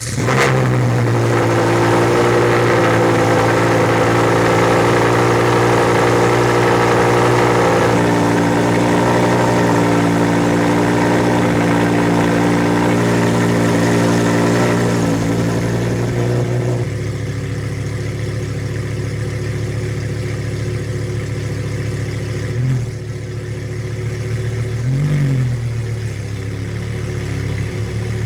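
Lamborghini Huracán STO's V10 engine firing up and running at a fast idle, dropping to a lower, steady idle about seventeen seconds in. Two short blips of the throttle follow near the end.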